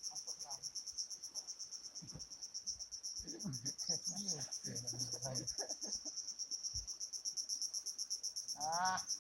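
Insects chirping in a steady, rapid, high-pitched pulsing trill throughout, with quiet voices talking in the middle and near the end.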